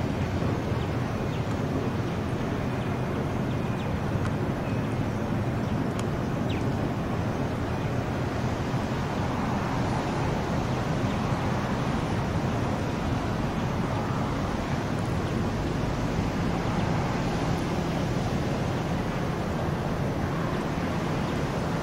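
Steady outdoor background noise: a low rumble with a hiss above it, steady throughout, with a few faint short high ticks in the first few seconds.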